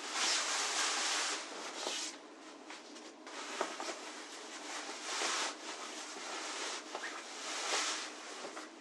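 Bursts of rustling, rubbing noise from things being handled, loudest in the first second and a half and again near the end, over a faint steady low hum.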